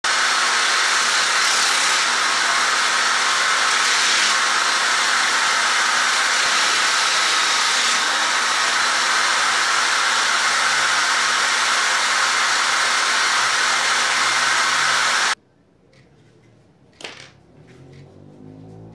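A power tool's motor running steadily with a loud, even rushing noise, cutting off suddenly about fifteen seconds in; a single knock follows shortly after.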